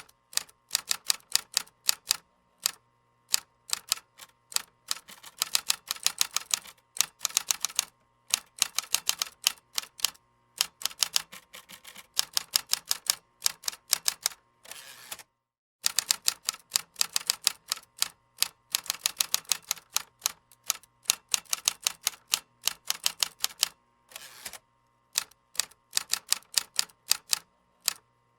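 Computer keyboard being typed on: rapid key clicks in bursts of a few seconds, separated by short pauses, with a brief full stop about halfway through.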